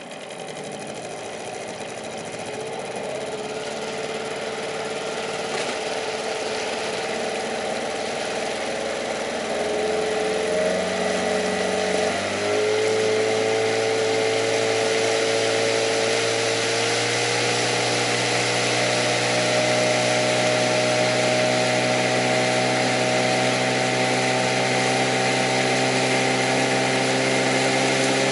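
Outboard motor on an inflatable boat running under way. Its pitch and loudness climb gradually as the boat gathers speed, step up about halfway through, then hold steady over an even hiss.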